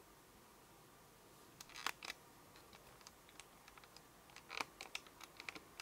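Cat chewing on a monitor's wire harness: a run of small, irregular clicks and crunches of teeth on plastic-coated wire, with two louder bites about two seconds in and about four and a half seconds in, after a quiet start.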